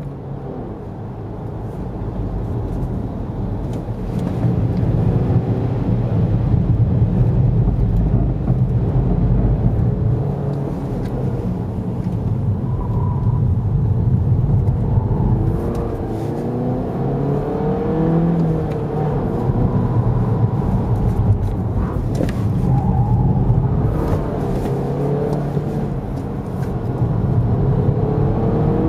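A BMW 118i F20's 1.6-litre turbocharged four-cylinder engine heard from inside the cabin as the car is driven hard on a handling course. The revs rise and fall over a steady tyre and road rumble, growing louder over the first few seconds.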